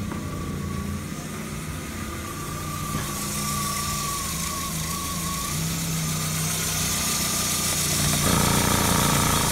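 Audi 100 C4's 2.0-litre AAD inline-four petrol engine idling steadily, heard up close in the open engine bay. It gets louder about eight seconds in.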